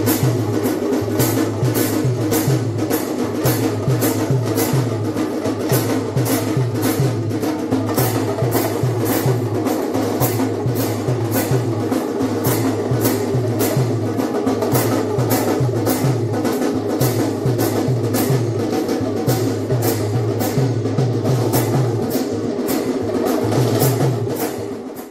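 Massed damrus (hourglass hand drums) played together in a steady rhythm, with a sharp beat about twice a second.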